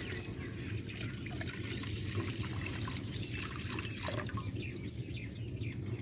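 Milk pouring from a plastic jug into a large aluminium pot, a steady splashing trickle into the milk already in the pot.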